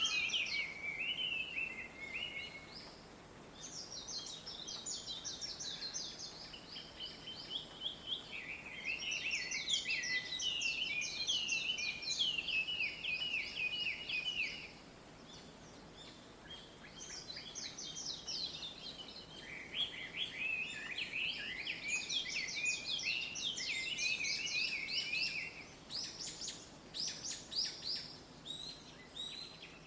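A flock of small birds chirping and singing together at dawn: dense runs of rapid high chirps in phrases several seconds long, with short pauses between them.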